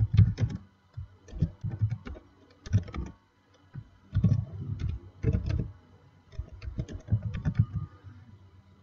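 Typing on a computer keyboard in about half a dozen short runs of keystrokes, each key with a low thud, with brief pauses between the runs.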